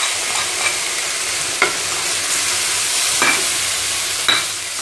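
Chopped onions, ginger-garlic paste and turmeric sizzling in hot oil in a frying pan, a steady hiss, while a metal spoon stirs them, clicking sharply against the pan three times.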